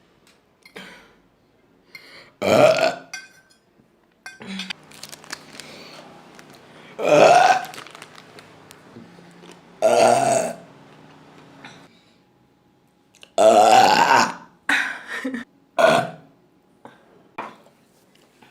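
A woman burping loudly, over and over: four long, drawn-out burps a few seconds apart, then two short ones.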